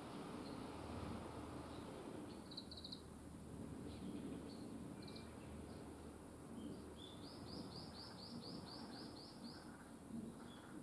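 Small songbirds chirping faintly over a steady low background hiss; a little after seven seconds in, one bird gives a quick run of about ten rising notes.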